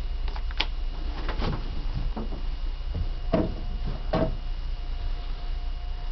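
Door-control push buttons on a Renault City Bus dashboard being pressed: a series of short clicks and knocks, the two loudest a little over three and about four seconds in, over a steady low diesel engine hum.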